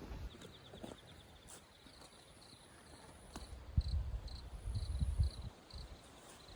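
Crickets chirping: a fast high trill in the first second or so, then short chirps repeating about three times a second. Low thuds come in a cluster from about four to five seconds in.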